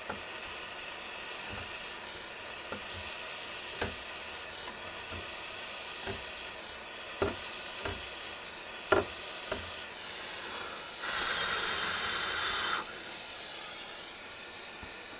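Soldering iron laying a solder bead on a copper seam: flux and solder sizzling over a steady high hiss, with a few light taps. About 11 seconds in, a louder burst of sizzling lasts nearly two seconds.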